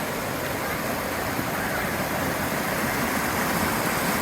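Steady rush of flowing water from a river or stream, an even hiss-and-roar with no breaks.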